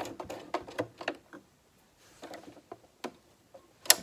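Light clicks and taps of a button and fabric being worked into place under a sewing machine's presser foot: a quick run of them for about the first second and a half, then a few scattered ones and one sharper, louder click near the end.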